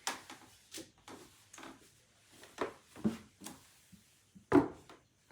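Handling noises: a series of light knocks and rubbing sounds as things are moved about, with one sharper knock about four and a half seconds in.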